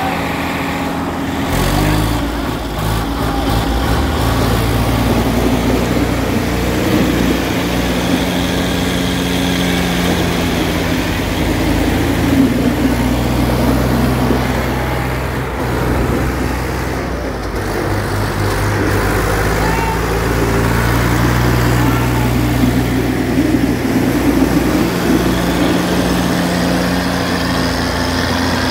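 Two diesel tractors, a Swaraj 960 and a Mahindra, running at high revs under heavy load as they pull against each other tail to tail in a tug-of-war. The engines rev up about two seconds in, ease off briefly past the middle, then climb again.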